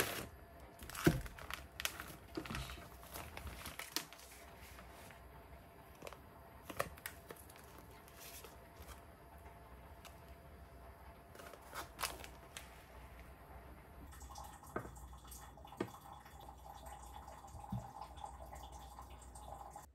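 Plastic meal-kit pouch handled and torn open: crinkling, scattered sharp knocks and wet squishing of sauce and ingredients in the bag. From about fourteen seconds in, a faint steady hum runs under the handling sounds.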